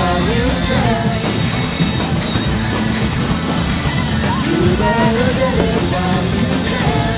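Rock song with a singing voice over a steady band backing. One sung phrase falls at the start and another begins about halfway through.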